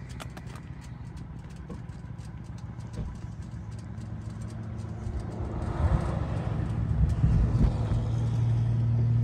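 Kawasaki Z1000 inline-four engine idling steadily through a TOCE aftermarket exhaust, growing louder over the second half.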